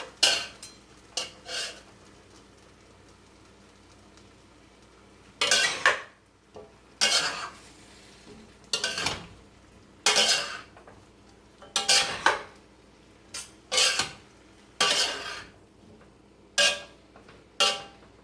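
A cooking utensil scraping and knocking against a pan as a stir-fry in thickened sauce is stirred, in irregular strokes about once a second, with a pause of a few seconds near the start.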